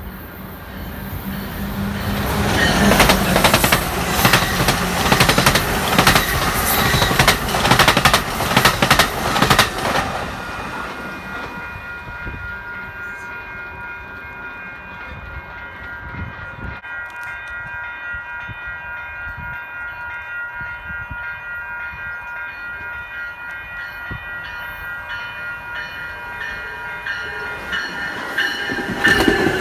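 An exo commuter train passes close by for several seconds, wheels clicking rapidly over the rail joints. Then it drops to a quieter stretch with a steady high-pitched tone while another push-pull commuter train, cab car leading, approaches and grows louder near the end.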